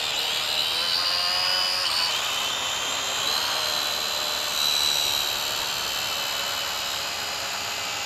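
Syma X5UC quadcopter's small electric motors and propellers whining while the drone is held in hand. The pitch wavers and rises in the first two seconds, then holds steady.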